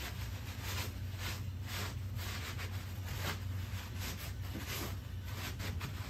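Wad of paper towels dabbed and rubbed against rough stained plaster rock, blotting off excess stain, with short papery scuffs about twice a second. The rough plaster is shredding the towel. A steady low hum runs underneath.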